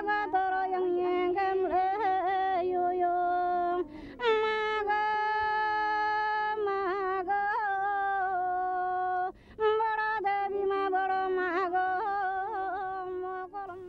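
A woman's voice singing alone, unaccompanied, in long held and wavering high notes. The song comes in three phrases, with short breaks about 4 and 9.5 seconds in.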